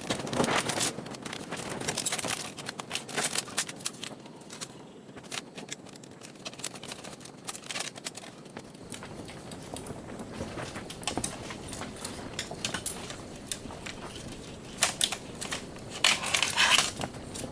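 Clicks, rattles and crinkling of plastic and metal laptop parts being pried apart and handled, in busy bursts at the start, around two to four seconds in, and near the end, with lighter handling noise between.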